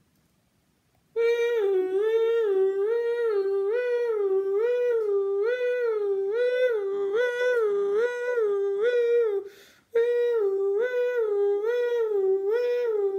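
A police-siren wail, its pitch swinging evenly up and down between two notes about one and a half times a second. It starts about a second in, drops out briefly near the ten-second mark, then resumes.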